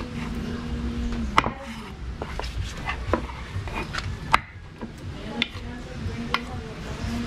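Kitchen knife knocking and scraping on a wooden cutting board as raw chicken is cut: a scatter of sharp, irregular knocks, the loudest about a second and a half in and again a little after four seconds.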